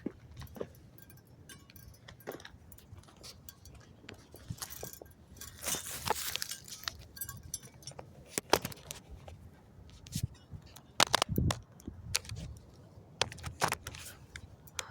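Irregular clicks and knocks of hands working on car body trim, with a short scraping rustle about six seconds in and louder knocks near the middle and toward the end.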